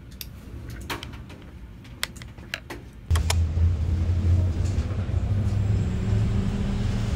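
Steady low rumble and hum of a running vehicle heard from inside the passenger cabin, starting abruptly about three seconds in. Before it, a few light clicks and taps over a quiet background.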